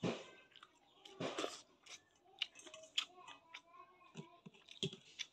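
Close-up eating sounds: chewing and mouth smacks with short crunches, and fingers mixing wet food in a steel bowl.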